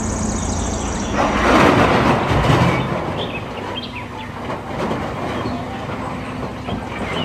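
Rumbling, clattering heavy-truck noise, most likely a dump truck sound effect, growing loud about a second in and easing off after a couple of seconds. Faint bird chirps run behind it.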